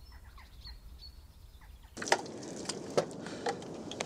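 Faint birds chirping over a quiet outdoor hush. About two seconds in, the background switches abruptly to a louder, rougher ambience with scattered clicks and knocks.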